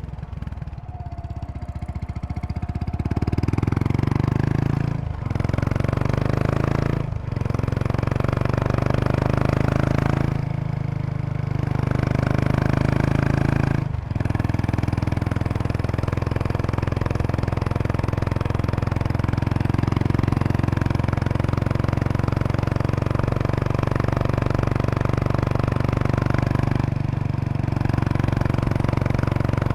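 Kawasaki Estrella RS's single-cylinder exhaust while riding. It builds up over the first few seconds, breaks briefly several times in the first quarter-minute, then runs at a steady, even pace.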